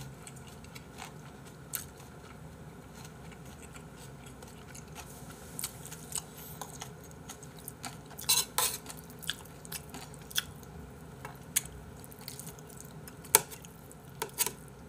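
Metal spoon clinking and scraping against a metal bowl of kimchi fried rice, with chewing between the scoops. The clinks come singly and irregularly, with a loud cluster about eight seconds in and a few more near the end.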